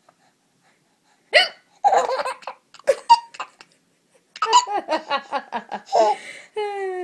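A woman hiccups and a baby laughs in quick, high-pitched bursts of belly laughter, twice, with a drawn-out falling squeal near the end.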